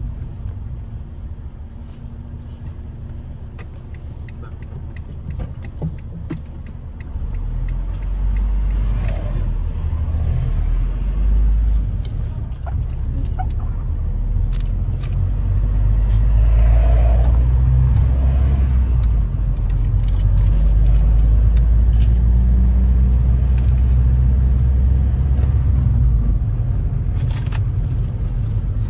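A route minibus heard from inside the cabin. The engine and road rumble grows about seven seconds in as the bus gets moving, then holds as a steady low drone at speed, with small rattles and clicks from the cabin fittings throughout.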